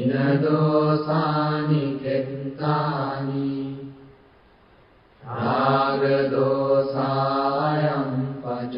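Buddhist chanting in Pali by a low voice, sung in two long, evenly held phrases with a short pause about four seconds in.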